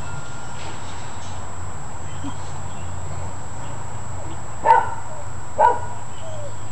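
A dog barking twice, short high-pitched barks about a second apart, a little past halfway through.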